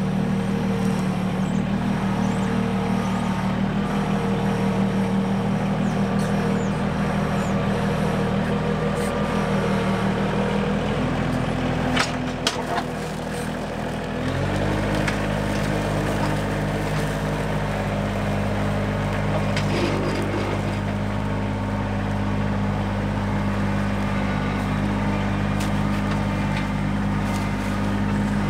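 Compact tractor engine running steadily while the tractor works the ground with its front loader. Its note changes about halfway through, just after a couple of sharp knocks.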